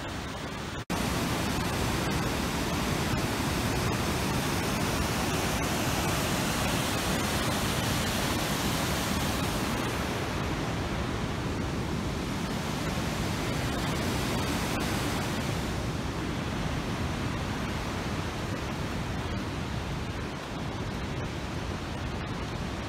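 Steady rush of fast-flowing water, an even noise across low and high pitches, with a momentary dropout about a second in after which it is a little louder.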